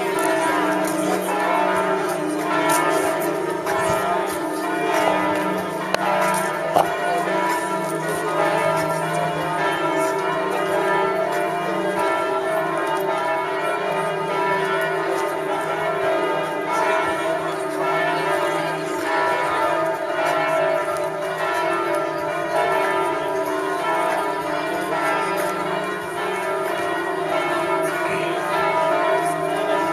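Church bells ringing a continuous peal.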